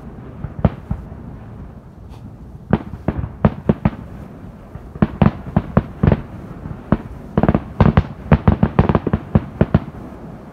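Fireworks display going off: sharp bangs in quick clusters, several a second, thickest in the second half.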